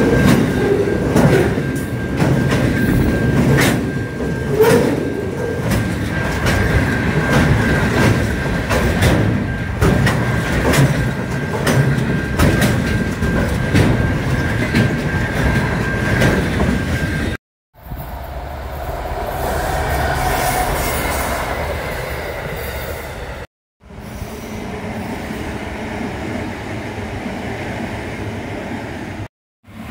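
Freight train wagons passing close by at speed: steady rumble with wheels clicking over rail joints and a steady high-pitched wheel squeal. After two abrupt cuts, the quieter rumble of other passing trains, the first swelling and fading away.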